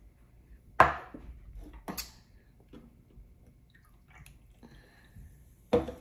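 Handling noise: a sharp knock about a second in, a smaller one a second later, and another sharp knock near the end, with light clicks between.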